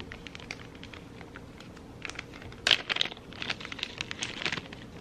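Clear plastic zip-lock bag being pulled open by hand: crinkling with a run of small sharp clicks, busiest a little past halfway.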